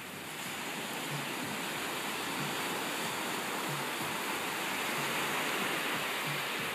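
Ocean surf breaking and washing up the beach: a steady rush of waves that swells a little louder after the first second.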